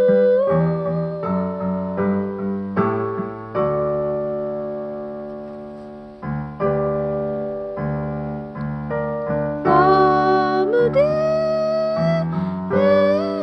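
A song on electric piano, with chords changing every second or so under a held melody line. The melody slides up in pitch about eleven seconds in.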